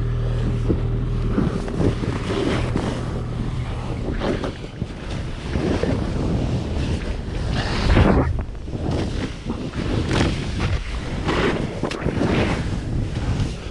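Wind rushing over the camera microphone while a snowboard carves through powder snow, swishing in surges with each turn. The biggest surge comes about midway.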